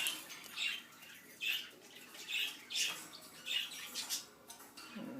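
Small pet-store birds calling, short squawky chirps repeating about once a second.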